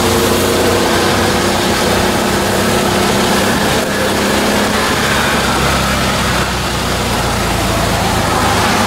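Auto-rickshaw engine running as the three-wheeler drives along, heard from inside its open cabin, over a steady hiss of road and wind noise.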